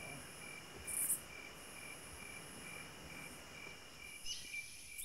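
Faint insects chirring: a steady high-pitched buzz with a regular pulsing chirp, about three a second.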